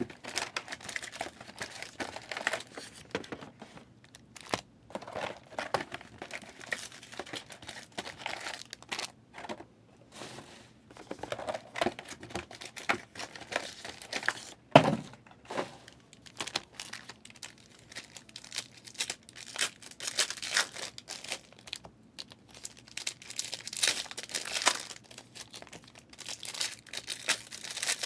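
Plastic box wrapping and foil-wrapped trading-card packs crinkling and tearing as a hobby box of cards is opened and its packs handled, in irregular rustles. One sharp knock about halfway through is the loudest sound.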